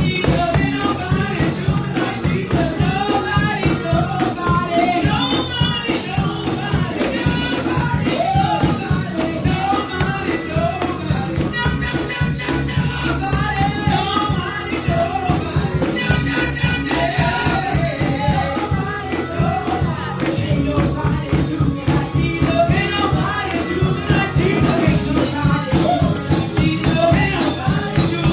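Gospel music: singing voices over a steady, driving beat with a tambourine shaking along.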